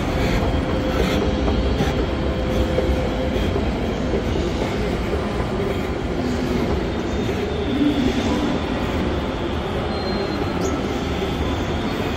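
A train moving on the rails: a steady rumble of wheels and running gear, with a few faint thin high tones over it.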